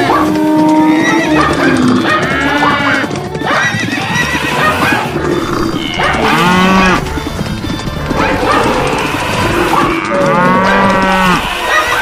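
Stampede sound-effect mix: a dense din of animal calls from a running herd, with a drawn-out pitched call rising and falling three times, about four seconds apart, over music.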